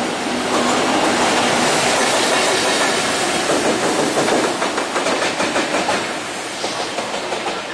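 JR Freight EF210 electric locomotive running light as it passes close by, its wheels clicking over the rail joints in a regular rhythm. The running noise eases a little near the end as it moves away.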